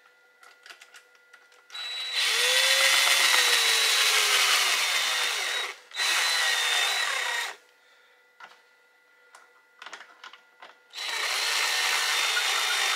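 Power drill driving the tightening screws on an inline duct fan's retaining rings, in three steady runs: about four seconds, then a shorter burst of a second and a half, then two more seconds near the end. Small handling clicks come in the pauses between runs.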